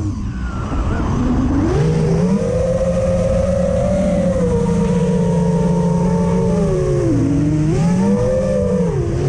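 FPV racing quadcopter's electric motors whining, the pitch dropping at the start, climbing about two seconds in and holding, then dipping and rising again near the end as the throttle is cut and pushed. A rush of wind on the onboard camera's microphone runs underneath.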